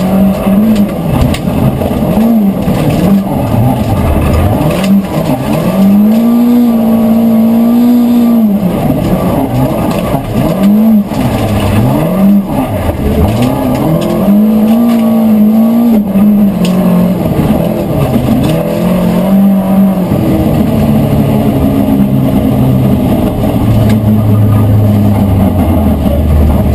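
Volvo 940 Group H rally car's engine heard from inside the cabin, revving hard and dropping back repeatedly through gear changes and lifts at stage pace. In the last few seconds the note falls lower and slower as the car slows.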